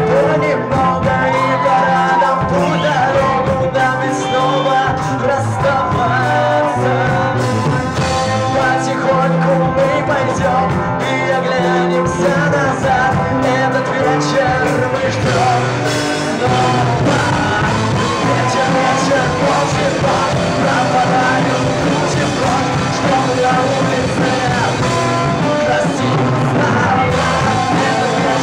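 Live rock band playing a slow love song, a singer's voice over the band.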